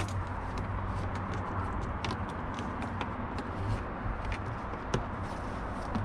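Scattered light clicks and taps of a screwdriver being worked at the ignition switch screw under the dashboard, with a sharper click at the start and another about five seconds in, over a steady low hum.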